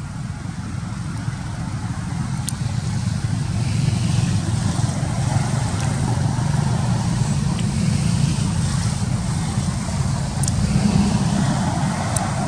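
Steady low rumble of motor traffic, growing louder through the middle, with a few faint sharp clicks.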